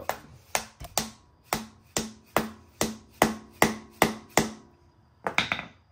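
A hammer strikes a bolt seated in an LS engine's crankshaft pilot bearing, about a dozen ringing metal blows at roughly two or three a second, then a short pause and a couple more near the end. Each blow drives the bolt into bread packed behind the bearing, forcing the pilot bearing out of the crank.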